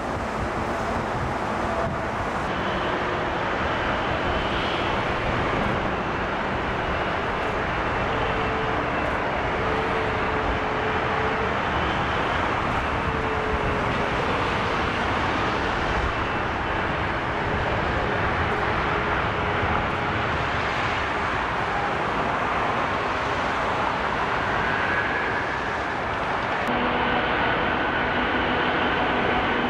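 Large four-engine cargo jets taxiing with their engines at idle thrust, first a Boeing 747-8F and then an Antonov An-124. The sound is a steady jet rush with faint whining tones, mixed with motorway traffic noise.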